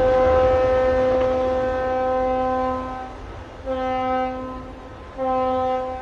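Ship's horns sounding in blasts to salute a ship's side launch: one long blast with a second, lower horn joining, then two shorter blasts about a second apart. A low rush of water fades under the first blast.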